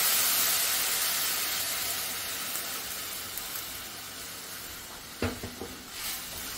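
Water poured into hot ghee in a steel kadai sizzles and hisses loudly, then dies down steadily as the pan fills. About five seconds in, a slotted metal spoon knocks against the pan as the liquid is stirred.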